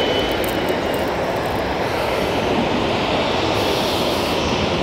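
Aircraft engine noise: a loud, steady rushing sound.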